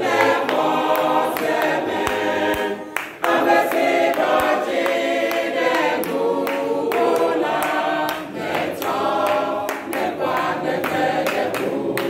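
A church choir or congregation of many voices singing together in chorus.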